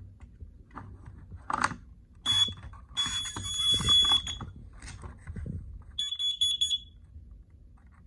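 Carbon monoxide alarm sounding its high, piercing test tone. It gives a short beep, then a held tone of about a second, and later a quick run of about five rapid beeps. A few knocks are heard in between.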